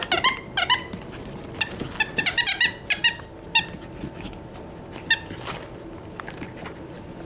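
Eight-week-old Cavapoo puppies whimpering in short, high-pitched squeaks, in a few quick clusters, the first right at the start and another about two seconds in, then single ones that thin out.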